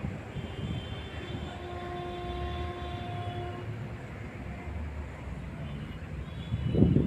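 Outdoor traffic ambience with low wind rumble on the microphone. A long steady pitched tone, a distant horn, sounds for about three seconds near the start, and a gust of wind hits the microphone near the end.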